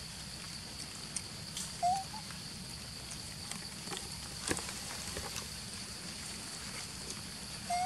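Outdoor ambience dominated by a steady, high-pitched insect drone, with two short chirping calls, one about two seconds in and one at the very end, and a few faint clicks.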